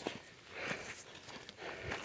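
Footsteps crunching on a hiking trail, a few uneven steps.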